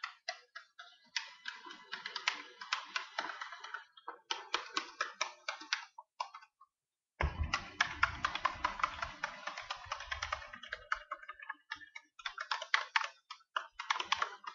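A spoon stirring soapy water in a container, clinking against its sides in quick runs of ticks with short pauses.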